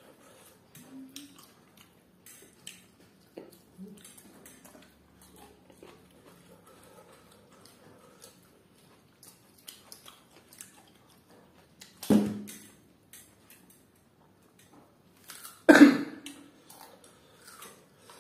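Close-up eating sounds: soft chewing and light small clicks of fingers picking through grilled fish and raw vegetables. Two short, much louder mouth sounds stand out, about twelve seconds in and again about four seconds later.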